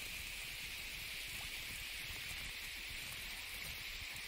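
A steady, even high hiss with nothing under it, unchanging throughout.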